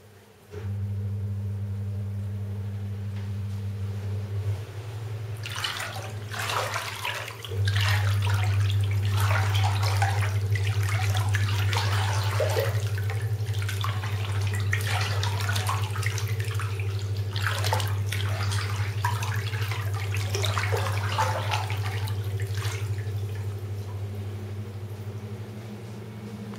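Bath water sloshing and splashing in irregular surges, over a steady low mechanical hum that switches on about half a second in and grows louder about seven seconds in.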